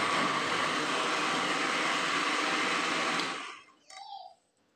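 Electric blender running steadily while it purées a liquid mixture in its plastic jar, then switched off a little over three seconds in and winding down.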